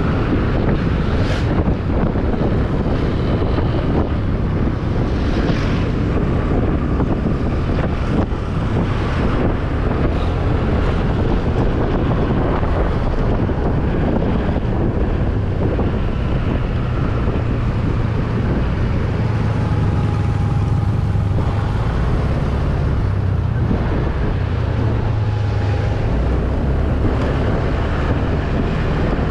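Wind buffeting the microphone of a moving Honda scooter, with the scooter's engine and road noise steady underneath as it rides through traffic.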